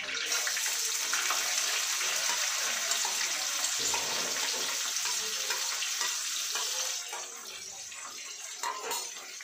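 Chopped onions sizzling as they hit hot oil in a steel kadhai, a loud steady hiss that starts as they go in and eases about seven seconds in.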